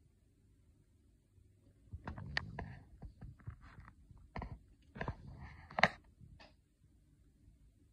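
A Richardson's ground squirrel scratching and clicking at the clear plastic rim of its cage: irregular small clicks and scrapes starting about two seconds in, with the sharpest click near the six-second mark.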